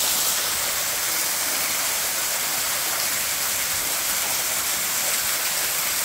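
Waterfall spilling off a rock overhang and splashing onto the rocks below: a steady, unbroken rush of falling water.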